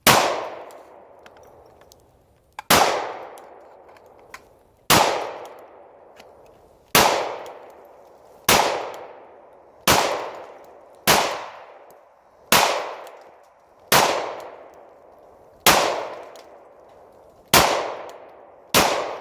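Pistol fired twelve times in slow, steady succession, a shot every one and a half to two seconds, each crack trailing off in a long echo.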